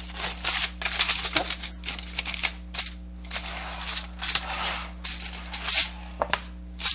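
Silicone pastry brush stroking soft butter over an aluminum-foil pan lining: the foil crinkles and rustles in short scratchy bursts with many sharp ticks.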